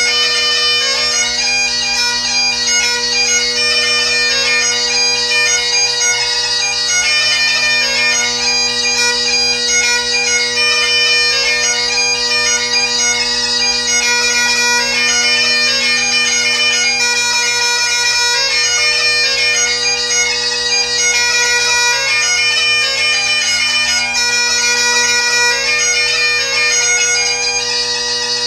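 Great Highland bagpipe played solo: the drones hold one steady low tone while the chanter plays a melody of quickly changing notes above it.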